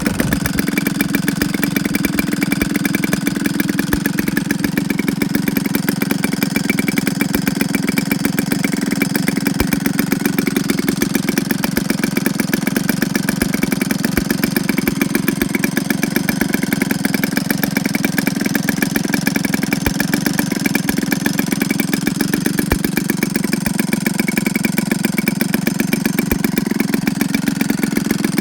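Bull Engine BE 62cc two-stroke gasoline model-aircraft engine running steadily on a test stand, spinning a 24x8 wooden propeller.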